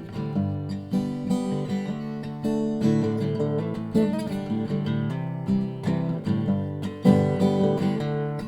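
Acoustic guitar strumming chords: the instrumental intro of a song, before the vocal enters.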